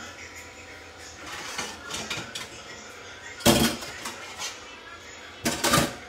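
Kitchen utensils and cookware clattering: a sharp knock about three and a half seconds in and a quick cluster of knocks near the end, with lighter clinks earlier.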